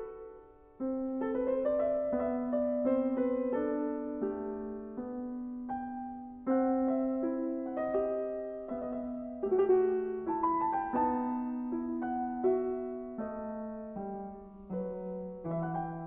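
Background piano music: slow notes and chords struck every second or so and left to ring.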